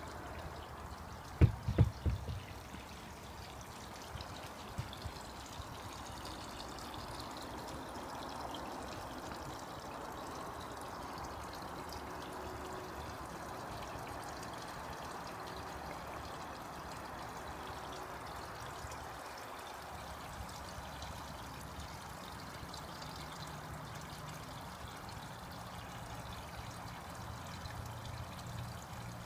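Water pouring and trickling steadily into a garden koi pond. A few dull knocks come about a second and a half in.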